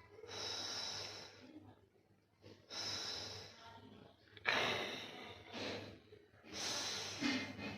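Breathing of a sleeping cat, as in a sleeping-cat sound recording: four noisy breaths, each about a second long, coming in a slow, even rhythm.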